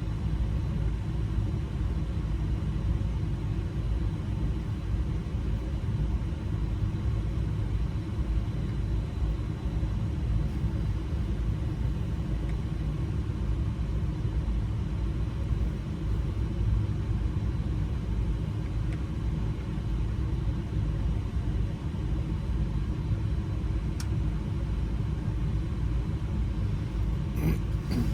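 Steady low engine rumble, like a vehicle idling, with a few faint clicks near the end.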